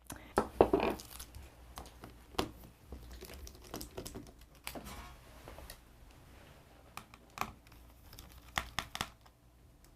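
Irregular clicking and tapping of keys and small plastic parts as a computer is worked on by hand.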